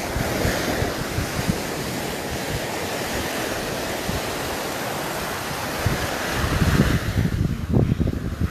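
Ocean waves breaking and washing up the beach in a steady surge, swelling again near the end, with wind gusting on the microphone.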